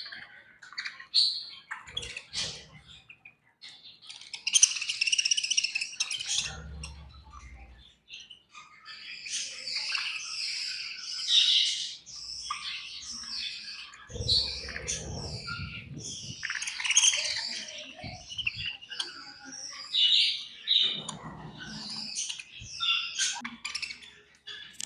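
A group of budgerigars chirping and chattering in fast, overlapping bursts of high notes, with a few short low rumbling thumps in between.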